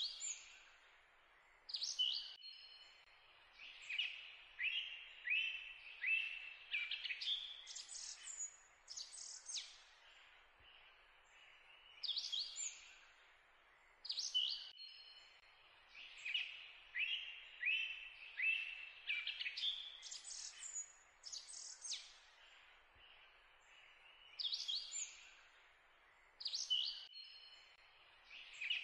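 Songbirds chirping and whistling in quick series of short notes over a faint hiss. The same run of calls comes back about every 12 to 13 seconds, like a looped recording.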